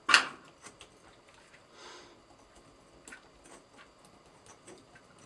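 Small hand tools and tiny screws clicking on a workbench while small screws are backed out of an RC car's steering servo mount with a hex driver. One sharp click just after the start is the loudest, followed by scattered light ticks.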